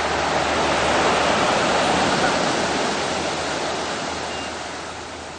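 Ocean surf: a wave rushing in, loudest about a second in, then slowly fading as the water washes back.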